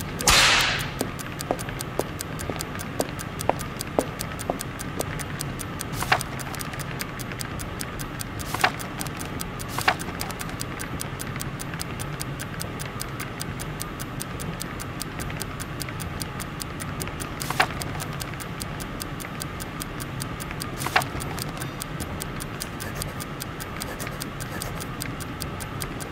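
A clock ticking about twice a second over a steady low hum. A loud swish of paper sheets comes at the very start, and a few sharper clicks follow later.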